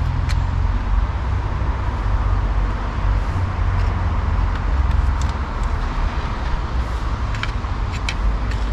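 A few small sharp metallic clicks as a tool pries at the spring on a car door lock mechanism, one at the start and a few more near the end, over a steady low rumble.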